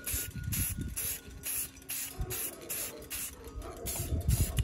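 Aerosol can of triple-thick clear glaze spraying in short hissing bursts, about two or three a second, with wind buffeting the microphone.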